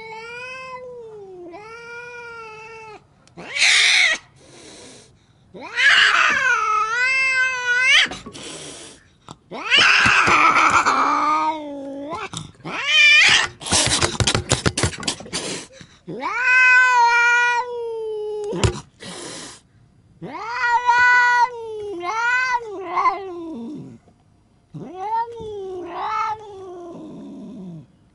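Grey-and-white cat yowling and growling at a hand reaching towards it: long, wavering, drawn-out calls, over and over, with harsh hisses in between. About halfway through comes a rapid run of clicks and hissing. It is the defensive warning of a frightened, cornered cat.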